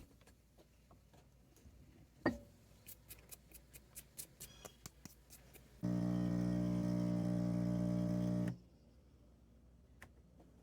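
A steady electric hum that switches on abruptly, runs for about three seconds and cuts off abruptly. Before it comes a run of light clicks and taps, one of them sharper about two seconds in.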